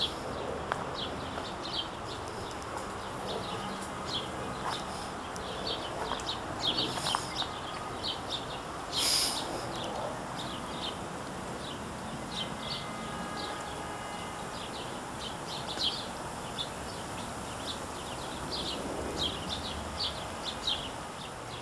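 Small birds chirping, short high notes repeated all through, over a steady low background hum. There is a brief noisy rush about nine seconds in.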